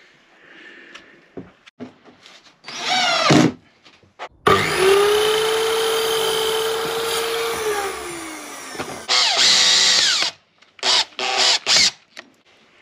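Power tools in quick succession. A short burst from a cordless drill-driver comes first, then a Titan sliding mitre saw's motor runs steadily for about three seconds and winds down with a falling whine. After that come another loud tool burst and a few short knocks near the end.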